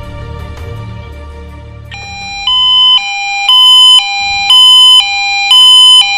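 Background music fades out, and about two and a half seconds in a loud electronic two-tone alert starts, switching between a higher and a lower pitch about twice a second: a fire-brigade alarm pager going off.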